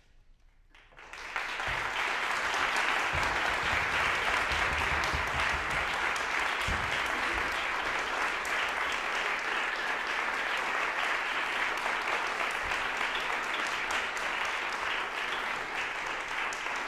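Audience applauding, starting about a second in and then holding steady.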